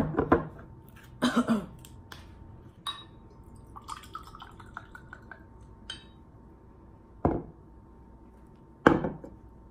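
Apple cider vinegar poured from a bottle into a glass shot glass, a short gurgling pour about four seconds in. Around it the bottle cap and the glass are handled with a few knocks and clinks, the loudest near the end.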